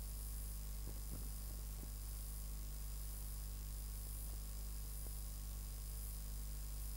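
Steady low electrical hum with an even hiss over it and a few faint clicks, from a blank stretch of an old videotape transfer.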